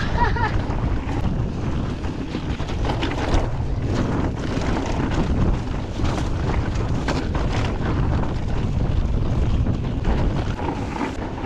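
Wind buffeting the microphone as a mountain bike descends a dry dirt trail, with a steady low rumble and scattered knocks and rattles from the bike and tyres over the bumps.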